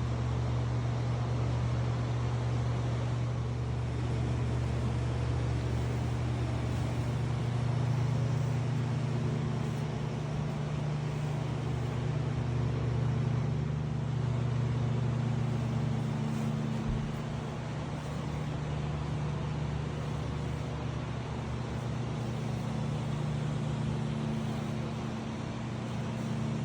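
Steady low machine hum with a few held low tones, unchanging throughout.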